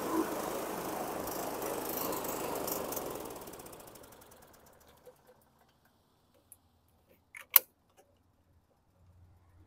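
Scotts (John Deere-built) walk-behind lawn mower's small single-cylinder engine running, then slowing and dying between about three and five seconds in, its firing strokes spacing out as it stops. The owner takes the stalling for fuel starvation, with the carburettor float needle possibly stuck. Near the end, one sharp click.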